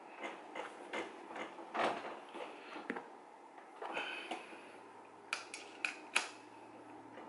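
Metal bolts in a gaming chair's backrest-to-seat bracket being tightened by hand: a string of small, irregular metallic clicks and scrapes, with a few sharper clicks between five and six seconds in. One bolt is being snugged that had not been tight enough.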